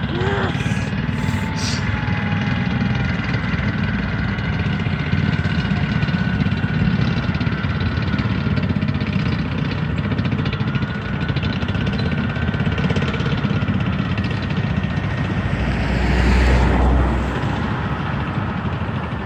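M1A1 Abrams tanks' AGT1500 gas-turbine engines running, a steady high whine over a low rumble. A brief deep rumble swells up about three-quarters of the way through.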